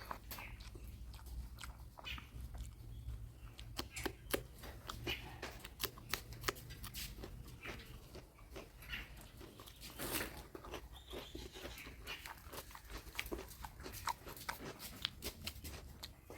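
Close-miked eating sounds of mutton curry: irregular wet mouth smacks, clicks and chewing, with a denser flurry of them about ten seconds in.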